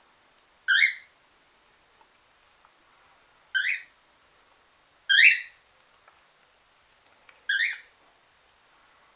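Cockatiel calling: four short, loud calls, each about a third of a second long, spaced one and a half to three seconds apart.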